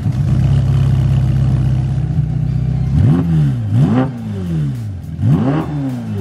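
Ferrari Portofino M's twin-turbo V8 idling steadily while it warms up after a cold start, then revved three times about three, four and five and a half seconds in, each rev rising sharply and falling back to idle.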